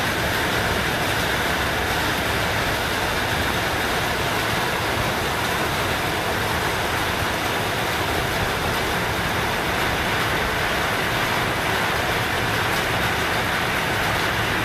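Steady rain falling on wet ground and puddles, an even hiss that does not let up.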